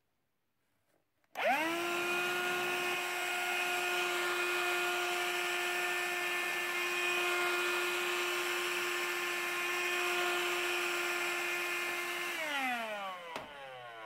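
CLEANmaxx cordless cyclone hand vacuum switched on about a second in, its motor spinning up within a moment to a steady high whine as it sucks at carpet through the small upholstery nozzle. Near the end it is switched off and runs down with a falling whine.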